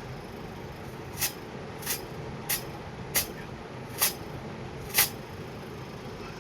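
LG inverter refrigerator compressor running with a steady hum, started from the test button after the new IPM was fitted on the control board, with no fault blinking. Six short, sharp hisses come about once a second over it.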